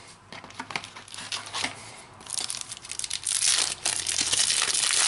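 A Topps Mega Match Attax trading-card pack wrapper being crinkled and torn open by hand. A few light clicks come first, then from about two seconds in a dense, loud crackle of the wrapper.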